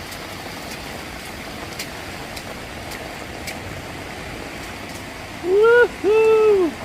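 Steady hiss of falling rain with a few faint ticks, then a man's loud two-note "Woo-hoo!" near the end.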